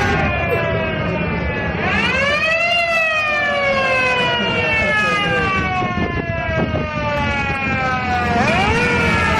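Siren of a 1960 historic ambulance wailing: its pitch climbs quickly about two seconds in and then falls slowly over several seconds, then climbs again near the end, over a steady low rumble.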